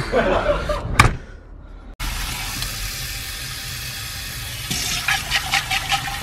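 Water from a tap running steadily into a utility sink and a glass hookah base held under it, with a few light knocks near the end. It opens with a second of voices and laughter and a sharp click.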